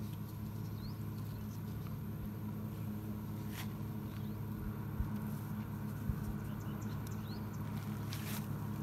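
A steady low mechanical hum under faint rustling and light clicks from hands working with bait and hook among leaves, with a couple of small thumps in the middle and a few brief high chirps.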